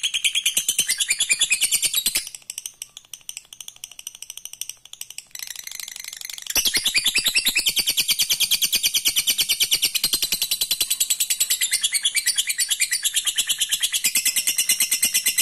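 Lovebird 'ngekek': a long, rapid, high-pitched chattering trill of many quick chirps. It breaks off about two seconds in, goes quiet and faint for a few seconds, then resumes loud and runs on unbroken.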